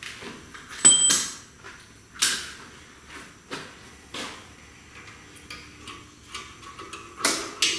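Scattered clicks, knocks and rattles of a radiator and cooling-fan assembly being handled and fitted in an engine bay. The sharpest is a clink with a short ring about a second in, and a longer scraping rustle comes near the end.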